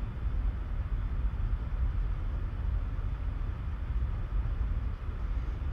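Steady low rumbling background noise with a faint hiss and no distinct events.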